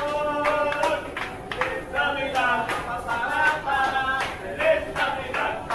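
Background music: a sung melody with held notes over a steady beat.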